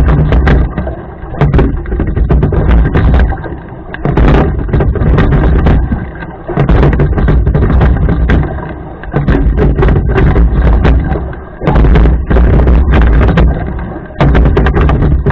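Rowing boat under way: loud low rumbling with knocks that surges and drops in a steady rhythm, about once every two and a half seconds, in time with the rowing strokes.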